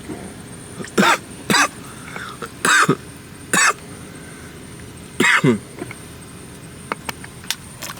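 A person coughing in about five short, loud bursts, the last a double cough, followed by a few light clicks near the end.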